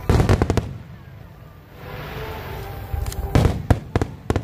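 Fireworks display: a rapid cluster of aerial shell bursts right at the start, then another run of several sharp bangs about three seconds in.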